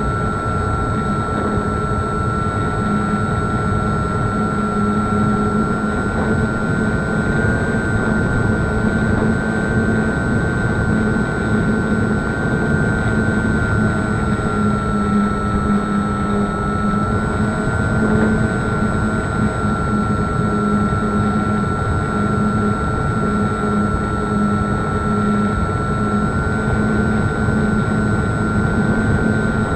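Small propeller airplane in flight: a steady drone with a strong high whine that drifts slightly up and down in pitch.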